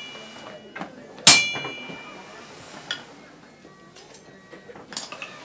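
A blacksmith's hammer strikes the anvil once, about a second in, with a loud metallic ring that dies away over about a second. A few lighter knocks follow later.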